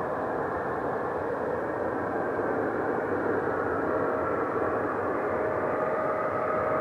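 Jet airliner's engines running as the twin-engine plane moves across the airfield: a steady rumble that grows louder, with a steady turbine whine coming in about halfway.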